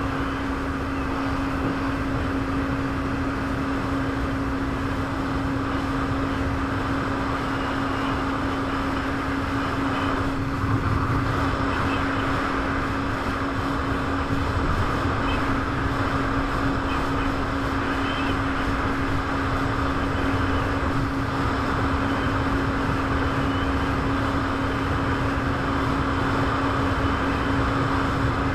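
Personal watercraft (jet ski) engine running steadily, a constant hum held at one pitch over a broad, even rush of noise.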